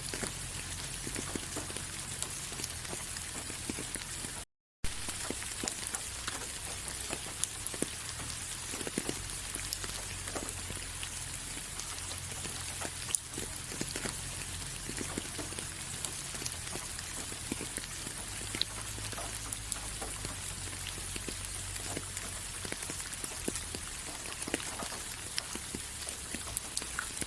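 Steady rain falling, an even hiss with scattered sharp ticks of individual drops striking a surface. The sound cuts out completely for a fraction of a second about four and a half seconds in.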